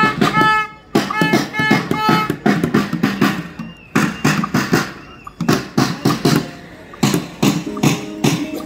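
A marching drum beating a quick, steady rhythm, with short pitched notes over it near the start and voices of the marchers.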